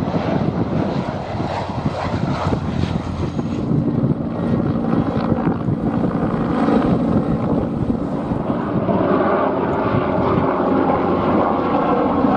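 Loud aircraft noise from low-flying aircraft passing overhead, a turboprop airliner and then helicopters, the sound changing in character every few seconds.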